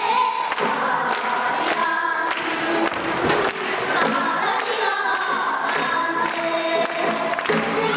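A group of children singing a pansori-style Korean song together in unison, holding notes that bend and slide in pitch, over a steady percussion beat of about two strikes a second.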